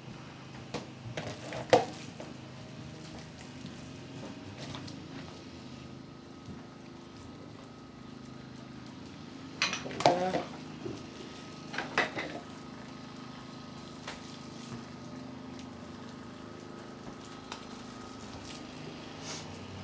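Kitchen handling sounds: a few sharp clinks and knocks of dishes and utensils over a steady low hum, one about two seconds in and a cluster around ten to twelve seconds in.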